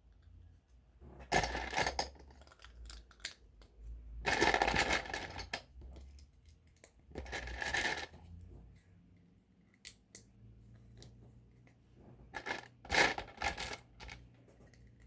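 Loose plastic Lego pieces clattering as they are handled and sorted through. The clatter comes in four short bursts of a second or so, with small clicks of parts between them.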